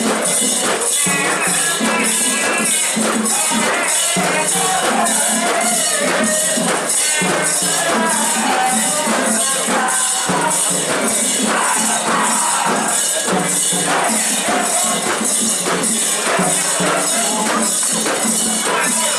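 Metal rings on a Japanese mikoshi (portable shrine) jingling rhythmically about twice a second as the bearers sway it. Many voices carry on beneath the jingling.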